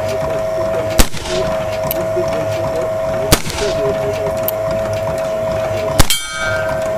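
Three rifle shots about two and a half seconds apart, each a sharp crack, fired with black powder that leaves heavy white smoke. A brief metallic ringing follows the last shot, and a steady high hum runs underneath.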